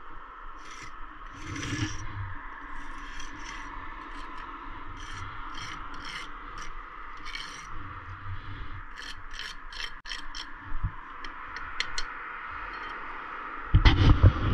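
A run of short scrapes and clicks of hand work on brickwork, then a burst of heavy thumps and knocks near the end.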